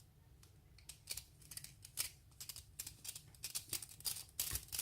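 Light, irregular metallic clicks and taps, several a second, starting about a second in: a picked-open lock and the picking tools being handled.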